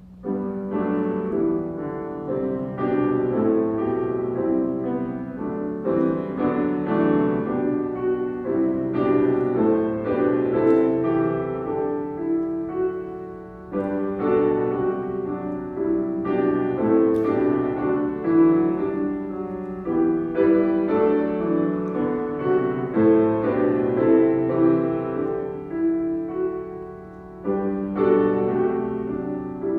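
Solo piano playing a slow, gentle piece in phrases, with no singing.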